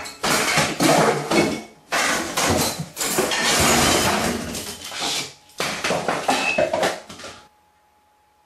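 Rapid, loud clattering and banging of kitchen crockery and cupboard doors, which cuts off suddenly about seven seconds in, leaving a faint steady whine.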